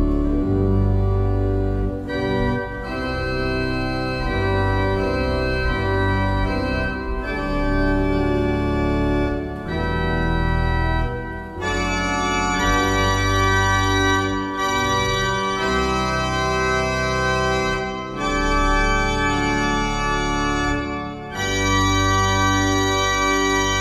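Heinrich Schiffner pipe organ (1913) playing slow, sustained chords over held pedal bass notes, the harmony changing every second or two. About halfway through, the sound grows brighter as more treble comes in.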